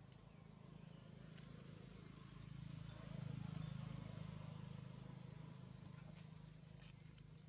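Faint low engine hum that swells about three seconds in and eases off again, like a distant motor vehicle passing, with a few light ticks and rustles over it.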